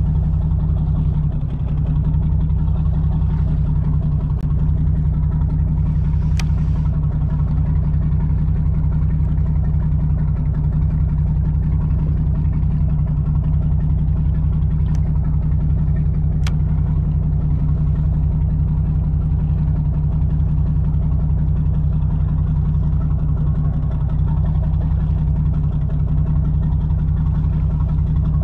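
A charter fishing boat's engine running steadily with a low, even drone. Two short sharp clicks stand out over it about a third and halfway through.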